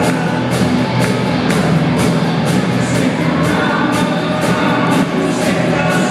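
Loud live rock band playing, with electric guitars over a steady drum beat whose cymbal and snare strokes land about twice a second, heard from the audience in a hall.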